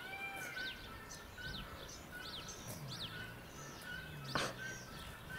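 Small birds chirping over steady outdoor background noise: short falling chirps and brief high notes repeated about once a second. A low hum comes in near the middle, and there is one sharp click about four seconds in.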